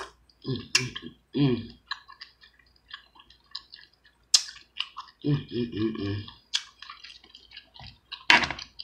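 Close-miked eating of saucy seafood boil: wet chewing, lip smacks and sharp mouth clicks, with a few short closed-mouth hums in between.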